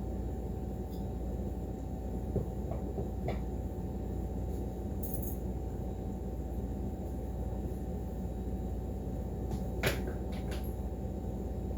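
Steady low hum with a few scattered light clicks and knocks, the sharpest one near the end.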